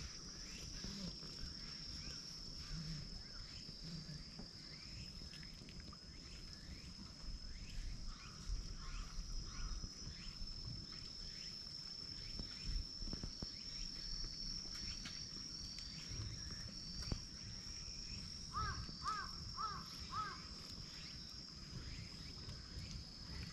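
A steady, high-pitched insect drone, with a bird calling about five times in quick succession near the end, and faint low knocks and rustles from handling.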